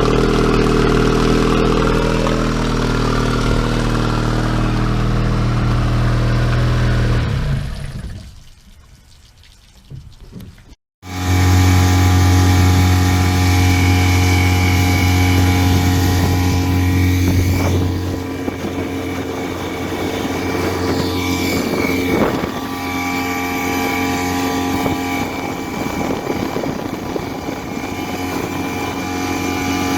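A Yamaha 8 hp four-stroke two-cylinder outboard running steadily. It fades away about seven seconds in. After a few seconds of quiet it runs again, and it eases to a lower, quieter note about eighteen seconds in.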